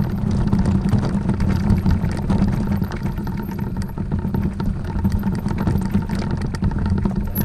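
A vehicle's engine running steadily, a low rumble with frequent small knocks and rattles on top.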